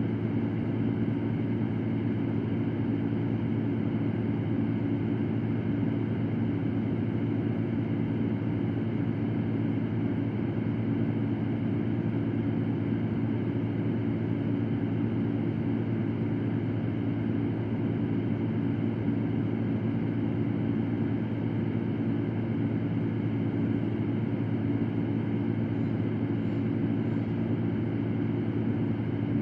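Electric fan running at a constant speed: a steady, low whirring hum with a rush of air that does not change.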